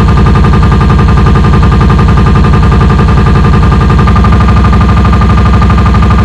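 Loud, very fast, evenly repeating distorted electronic pulse, a machine-gun-like stutter in a cybergrind noise set.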